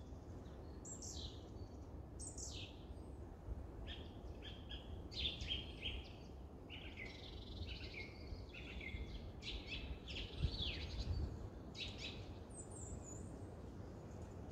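Wild songbirds chirping and calling, with many short high calls and quick falling sweeps, thickest in the middle and with a high thin call near the end, over a faint low steady rumble.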